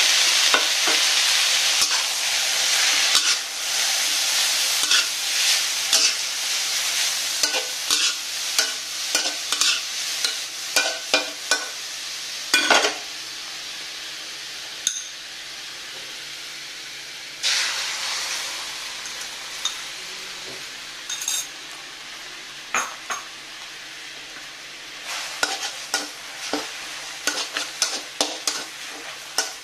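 Food sizzling in hot oil in a pan while a utensil stirs it, clicking and scraping against the pan. The sizzle dies down over the first half, jumps up sharply again a little past halfway, then fades, with a quick run of clicks near the end.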